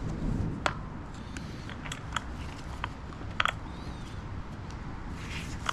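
Tire levers clicking and knocking against the rear wheel rim while the tire is being pried off, about half a dozen sharp clicks at uneven intervals.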